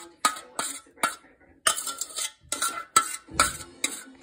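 A utensil clinking and scraping against a ceramic mixing bowl while a thick melted chocolate, butter and sugar mixture is stirred. The knocks come about three a second, each with a short ring, with a brief pause about a second in.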